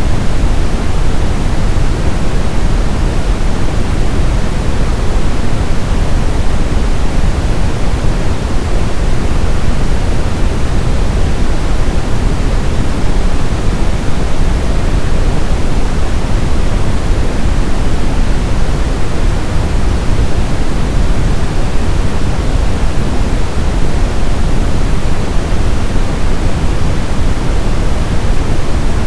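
Synthetic brown (Brownian) noise: a steady, unbroken hiss weighted toward the low end, deep like a distant waterfall.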